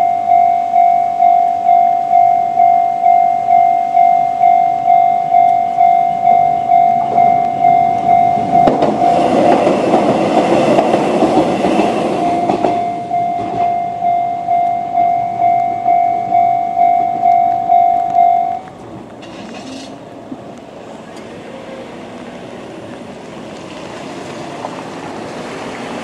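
Japanese level-crossing electronic warning bell with the Chichibu-type tone, ringing steadily at about one and a half strikes a second. A Konan Railway 7000-series electric train rattles over the crossing for about four seconds near the middle, and the bell stops a few seconds after that. Cars then start across on the wet road near the end.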